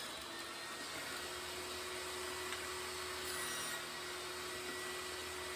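Table saw running with a steady, even pitch while the end of a short board is fed through the blade for a light squaring trim.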